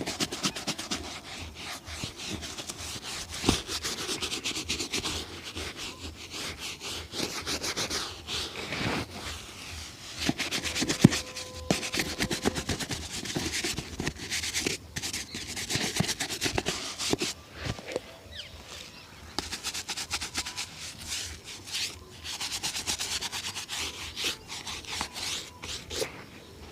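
Shoe being worked over in a shoe shine with fast, rhythmic rubbing strokes on the leather, in runs with short pauses between them.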